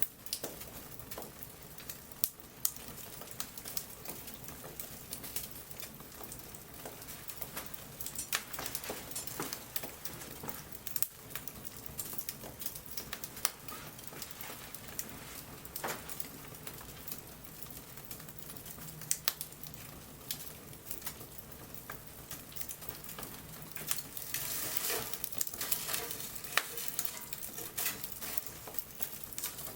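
Wood bonfire crackling and hissing, with scattered sharp pops of burning wood; the crackle grows denser about three-quarters of the way through.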